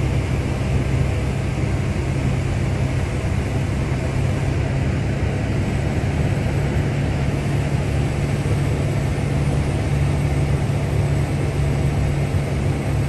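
Piper PA-38-112 Tomahawk's four-cylinder Lycoming O-235 engine and propeller running steadily on approach to land, heard from inside the cockpit.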